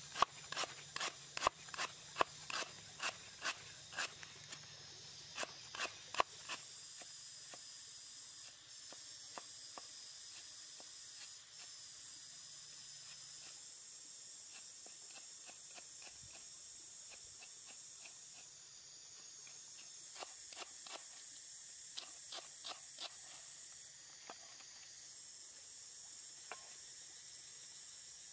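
A cleaver chopping lemongrass on a wooden chopping board, quick sharp knocks about three a second, for the first six seconds or so. After that comes a steady high drone of insects, with a few more knocks about two-thirds of the way through.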